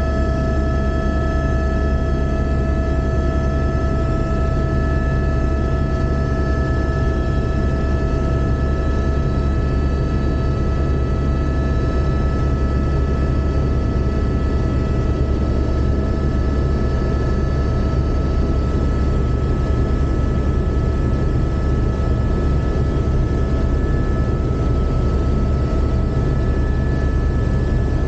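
Helicopter in flight heard from inside the cabin: the steady drone of the rotor and turbine engine, with several steady high whining tones over a deep low rumble.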